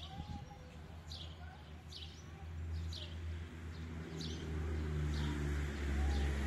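A small bird repeating a short falling chirp about once a second, over the low engine rumble of an approaching MAN diesel railcar that grows louder from about two and a half seconds in.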